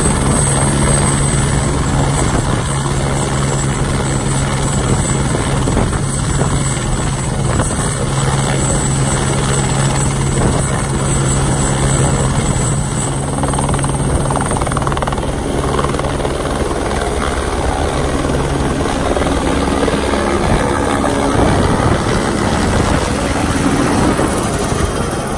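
Eurocopter AS350B2 helicopter's turboshaft engine and rotor running on the ground, with a steady low hum and a high turbine whine. About three-quarters of the way through the steady tones give way to rougher rotor noise as it lifts off and climbs overhead.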